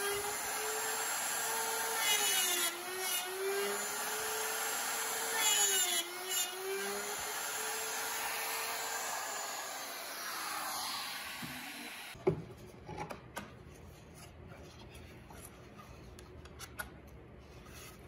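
Handheld router cutting dovetails in wood, its motor pitch sagging briefly each time the dovetail bit bites in, then winding down with a falling whine. About twelve seconds in it gives way to a quieter room with a few light wooden knocks as a dovetail joint is pushed together.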